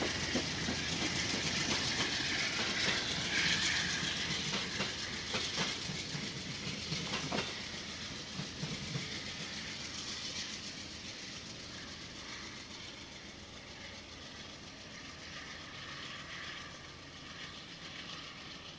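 Amtrak passenger train's cars rolling past, wheels clacking over the rail joints, then the sound fading steadily as the train pulls away.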